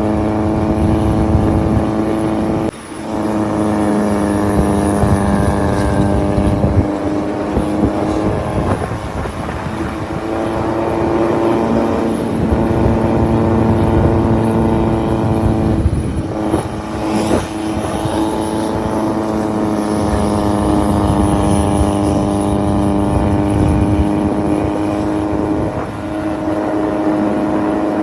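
Vehicle engine running at a steady, held pitch with a low rumble, as under constant load on a climb, with a brief dip a little under three seconds in.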